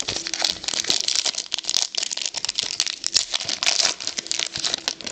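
Trading card packs and cards being handled: irregular crinkling and rustling of pack wrappers with quick card flicks, dropping off abruptly at the end.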